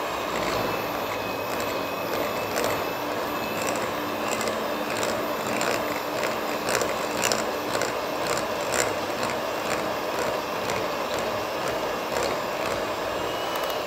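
Philips electric hand mixer running steadily with a thin motor whine as its beaters cream margarine and sugar, with scattered clicks where the beaters knock against the glass bowl.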